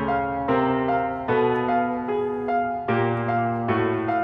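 Background piano music: held chords struck afresh about once or twice a second.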